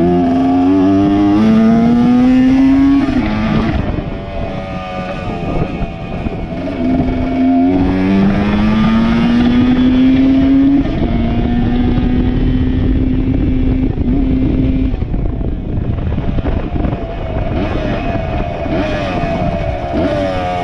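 A small MX 100 dirt bike's engine running at full throttle. The pitch climbs and falls back sharply several times as it goes up through the gears, eases off about three-quarters through, then picks up again.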